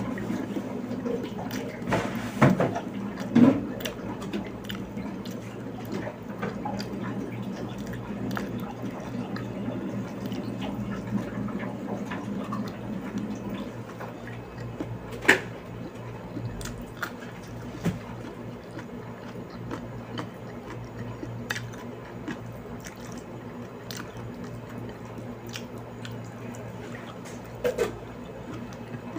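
A person chewing food eaten by hand, with scattered small clicks and a few louder mouth noises, over a steady low hum.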